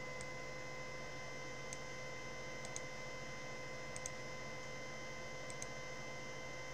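Steady electrical hum made of several fixed tones, with faint computer mouse clicks scattered through it, a few in quick pairs like double-clicks.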